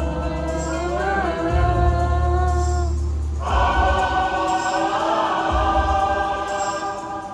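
Choir singing long held notes in harmony over a deep pulsing bass beat, with a brief drop near the middle before the voices swell back in.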